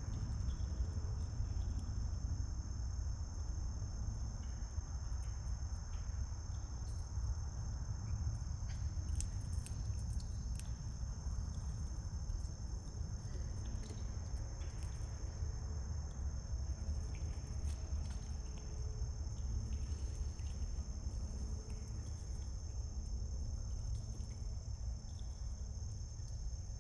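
A steady, high-pitched insect chorus over a constant low rumble, with scattered faint clicks and taps.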